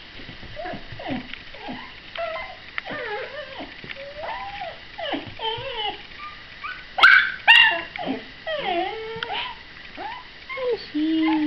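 A puppy whimpering and whining, with many short high calls that bend up and down, and two loud, sharp yaps about seven seconds in.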